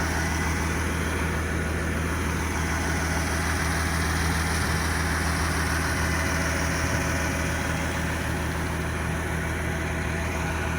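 Diesel engine of a CAT 330 CL excavator running steadily with an even low hum and no change in revs.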